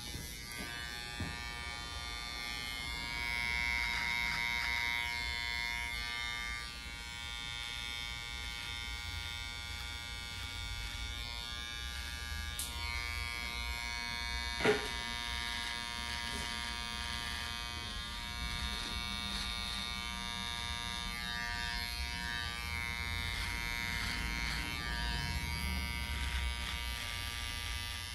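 Cordless beard trimmer running with a steady buzz as it trims the beard along the neck. A single sharp click comes about halfway through.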